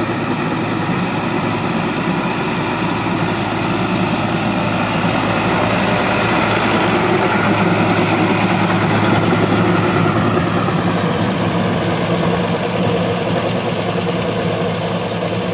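Sonalika DI 750 tractor's diesel engine running steadily under load, pulling a rotary tiller through flooded paddy mud. It grows a little louder in the middle as the tractor passes close, then eases off.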